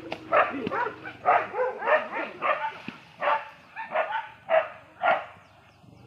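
Dog barking repeatedly at wild elephants, about two barks a second, chasing them off. The barks stop near the end.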